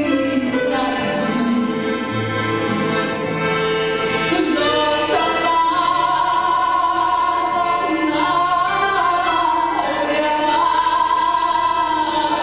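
A woman singing live through a microphone in a full, operatic style, with long held high notes in the second half, over a small band of plucked strings and accordion.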